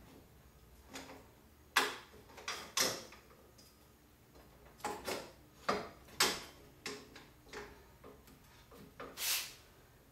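Irregular light clicks and knocks, with a short scrape near the end, from a bicycle and the metal arms and pegs of an overhead bike storage rack being handled and adjusted.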